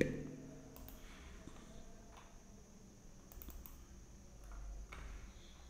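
A few faint scattered clicks of a computer keyboard, taps used to move through trading software, with a soft low rumble about four seconds in.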